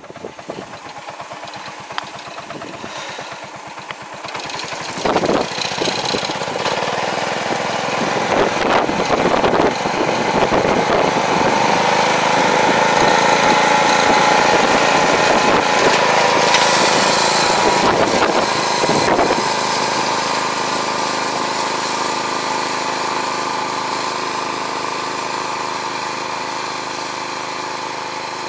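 Small tractor engine running steadily while it pulls a fertilizer applicator through a field. It grows louder toward the middle and then fades gradually over the last ten seconds or so as the tractor moves away.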